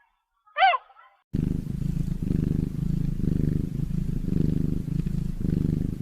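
A goose honks once, then a domestic cat starts purring: a steady low purr rising and falling in slow waves.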